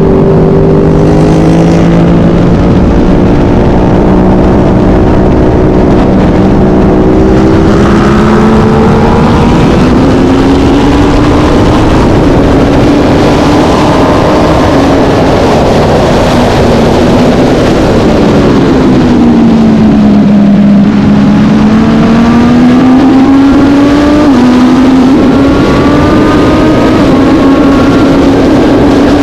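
Vintage racing motorcycle engine running hard under race conditions over a constant rush of wind. Its pitch climbs, sags and jumps with throttle and gear changes, dipping low around twenty seconds in and stepping down at a shift a few seconds later.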